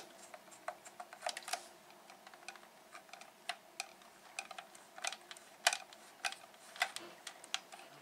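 Hand screwdriver driving a screw into a plastic TV case: irregular light clicks and ticks, a few a second, as the screw turns and the driver is regripped.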